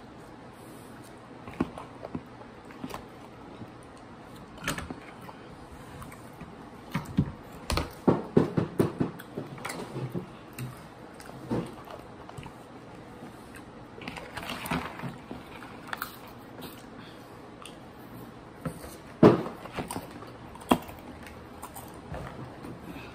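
Crunching and chewing of crunchy spicy corn snacks (Hot Cheetos and Takis), with clicks and rustles as a plastic snack container is handled. The crunches come in irregular bursts, a dense run about eight seconds in and a sharp loud one a little before the end.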